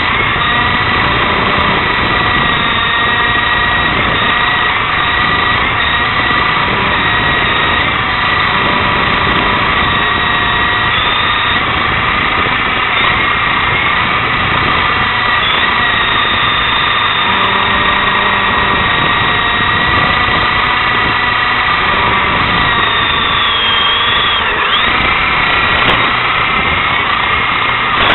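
Toy remote-control helicopter's electric motor and rotors whining steadily up close, heard from its own onboard camera, the pitch drifting a little as it flies, with a brief dip near the end.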